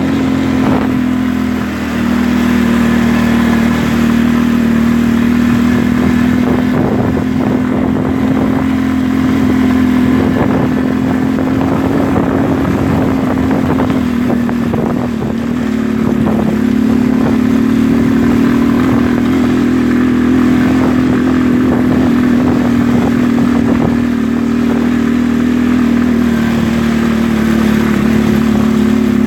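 ATV engine running at a steady, even pitch while riding. Its note dips briefly twice, and frequent rattling knocks come through over it.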